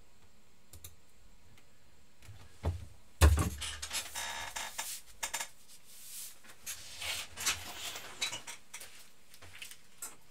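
A heavy thump about three seconds in, then a run of irregular clicks and crinkly rustling from objects being handled.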